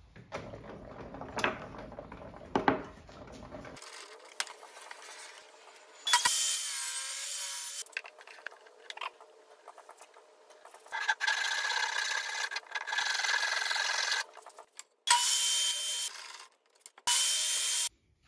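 Woodworking shop sounds: wood pieces handled and knocked, then several short bursts of a power tool cutting wood, each lasting one to three seconds, with a steady motor tone under the noise.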